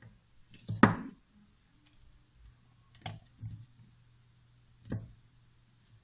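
A few sharp clicks and knocks over a faint steady low hum: a loud one about a second in, two close together near the middle, and one more near the end.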